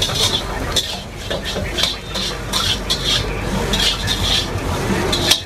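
Metal spatula scraping and clanking against an iron wok as noodles are stir-fried, repeated irregularly about twice a second, over a faint frying hiss.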